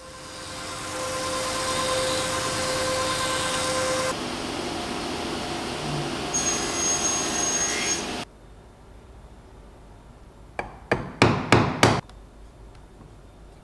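Sliding table saw running and crosscutting oak slats, the blade noise cutting off abruptly about eight seconds in. Near the end, a quick run of about six sharp knocks as bar clamps are set against a glued-up wooden frame.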